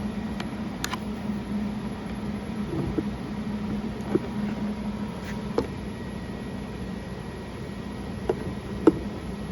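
Scattered light clicks and taps of a car speaker being handled and fitted into its plastic dash speaker pod, the sharpest click near the end, over a steady low hum.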